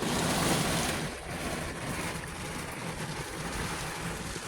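Heavy rain pouring down on a car, heard from inside the cabin as a steady, even rush of noise, a little louder in the first second.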